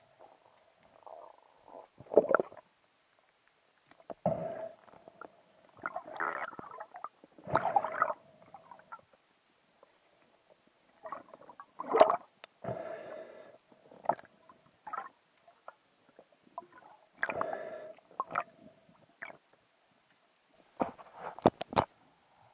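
Intermittent muffled knocks, scrapes and gurgles heard underwater through a camera housing as a spearfisher moves and handles his speargun and a speared fish, with a sharp click about twelve seconds in.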